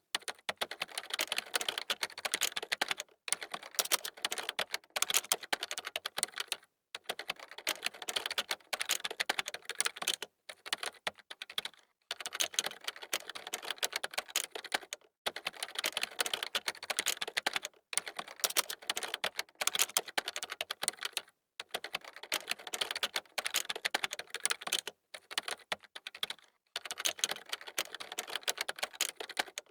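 Computer keyboard typing: fast runs of key clicks, broken by brief pauses every second or few.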